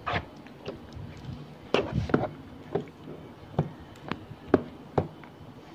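A spoon knocking and clicking against the side of a bowl while stirring a thick, creamy salad mixture, in about ten irregular knocks.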